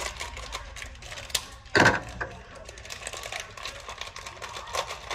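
Irregular small clicks and taps from things being handled in a kitchen, with one louder knock a little under two seconds in.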